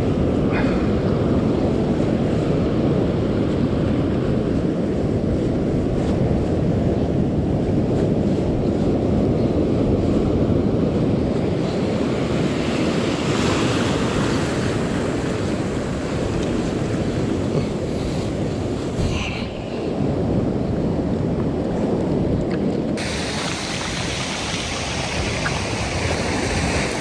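Ocean surf breaking and washing up the beach, with wind buffeting the microphone in a steady low rumble. Near the end the sound turns to a brighter, thinner hiss of surf.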